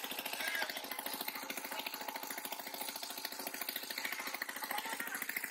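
A small engine running steadily at an even speed, with a fast, regular firing rhythm.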